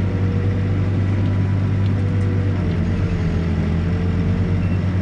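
Diesel engine of a New Holland B95 backhoe loader running steadily, a constant low drone with a steady higher whine above it.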